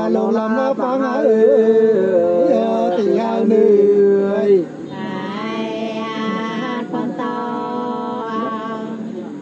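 Unaccompanied sli (hát si) folk singing: voices drawing out long, wavering notes. The first phrase ends on a long held note about four and a half seconds in, and a quieter phrase follows.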